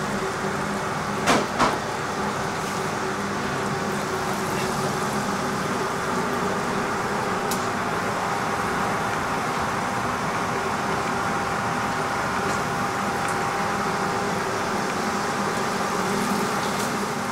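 Batter-coated potato vadas deep-frying in a kadai of hot oil: a steady sizzle over a constant kitchen hum with a few steady tones. Two sharp knocks about a second and a half in.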